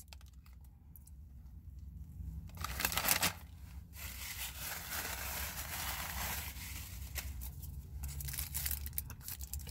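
Crinkly paper wrapping being handled and torn close to the microphone. Quiet at first, it turns into a louder tearing about three seconds in, then a steady rustle for the rest.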